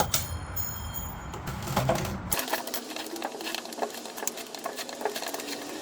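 Two-part paint being stirred in a small pot: quick, irregular clicks and scrapes of the stirrer against the container. The low background cuts away abruptly about two seconds in.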